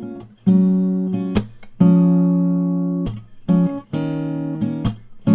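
Background music on acoustic guitar: notes and chords plucked every half second to a second, each ringing out and fading.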